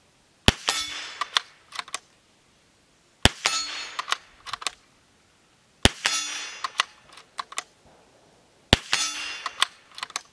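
Springfield Armory Model 2020 Rimfire bolt-action .22 LR rifle fired four times, about every two and a half to three seconds. Each shot is followed by a short metallic ring, then a few light clicks as the bolt is worked to chamber the next round.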